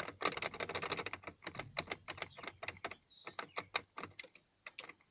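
Car ignition lock with its key in it being worked by hand: many quick, irregular clicks and rattles, thinning out near the end. The lock is jammed and the key will not turn past the first position.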